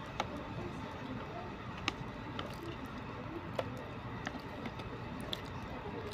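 A spoon clicking and scraping against a plastic food container as rice is scooped up, with about six sharp clicks spread over a steady background noise.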